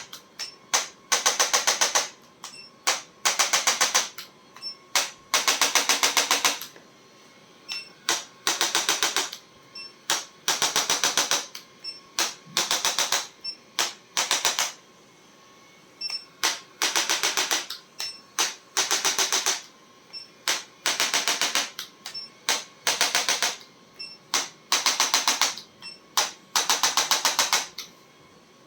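Chiropractic adjusting instrument firing rapid clicking thrusts, about a dozen a second, in repeated bursts of half a second to a second and a half with short pauses between.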